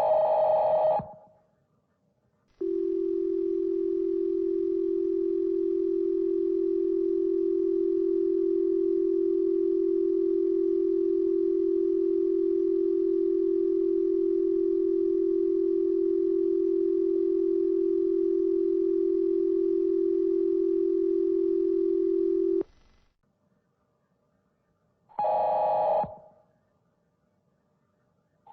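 American Emergency Alert System tones slowed to 0.4x speed. A data burst ends, then the two-tone attention signal plays as one long steady low tone for about twenty seconds and stops abruptly. After a pause, short digital data bursts return near the end.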